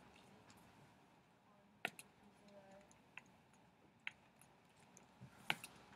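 Near silence broken by four short sharp clicks spaced a second or so apart, the one near the end the loudest.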